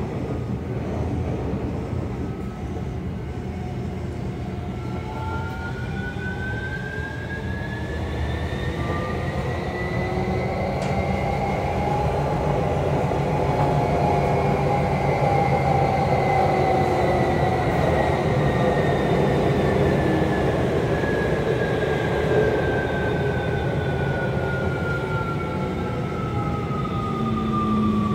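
Tokyo Metro 17000-series train heard from inside a motor car: a steady rumble of wheels on track under the whine of its Hitachi SiC-VVVF inverter and traction motors. The whine rises in pitch over roughly the first dozen seconds, then slowly falls as the train brakes into Den-en-chofu station.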